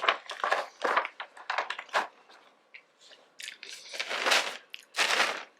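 Close-miked chewing of a sushi roll: irregular wet clicks, smacks and crunches of mouthfuls being bitten and chewed, with two longer noisy bursts near the end.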